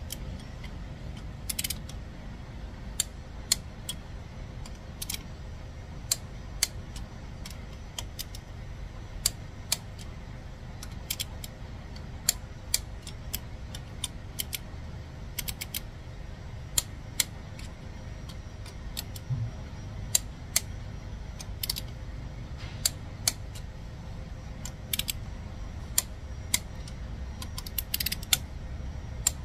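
Click-type torque wrench ratcheting on cylinder head bolts, sharp metallic clicks coming in irregular short runs as each bolt is brought up to about 35 Nm in the tightening sequence.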